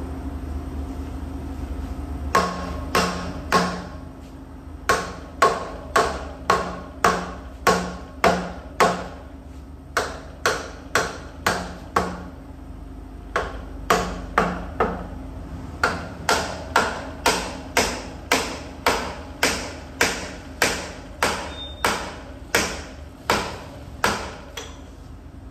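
Hammer blows on metal, each with a short metallic ring, about two a second in runs of three to seventeen with brief pauses between, over a steady low hum.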